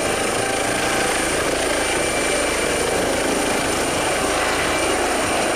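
Toy helicopter making a steady helicopter whir with a high, even whine, stopping abruptly at the end.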